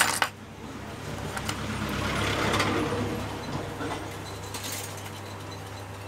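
Two sharp metallic clicks as a metal hand tool knocks against the work surface, then a soft rustle of handling that rises and fades, over a steady low hum.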